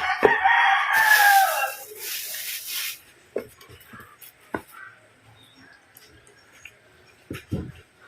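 A rooster crowing once: one call of about two seconds, falling slightly at the end. A hiss overlaps the second half of the call, and a few short knocks follow.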